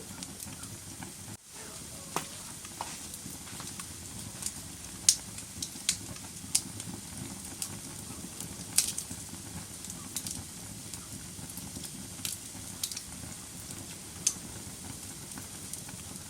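Wood fire burning in a fireplace: a steady low rustle of the flames with sharp crackles and pops of the burning logs scattered through it, the loudest about five and nine seconds in. A brief drop-out about a second and a half in.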